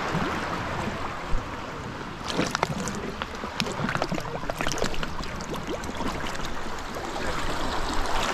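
Seawater being scooped into a cooking pot at the water's edge: splashing and gurgling, with a run of crackling splashes starting about two seconds in, over the steady wash of small surf.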